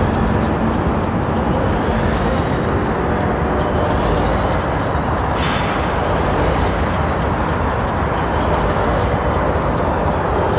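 Union Pacific diesel-electric road-switcher locomotive's diesel engine running loudly and steadily, a dense rumble with a high whine that rises and falls slowly over it. It is being readied for work, pouring out heavy exhaust smoke.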